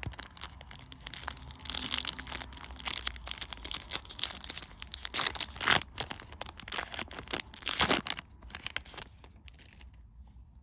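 Yu-Gi-Oh! booster pack wrapper being torn open and crinkled by hand, a dense run of crackling and tearing with a few louder rips, dying down near the end.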